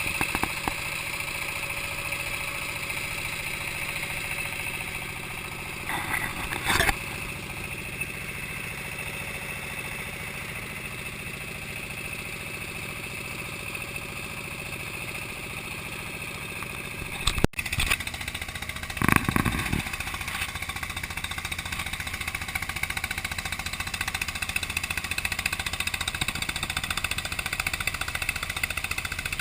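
Boat engine running steadily, with a few short knocks about six seconds in and again past the middle; an abrupt cut partway through.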